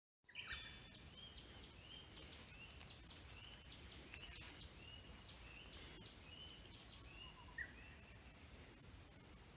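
Faint outdoor ambience: small birds chirping in short, repeated calls over a steady high-pitched tone and a low rumble.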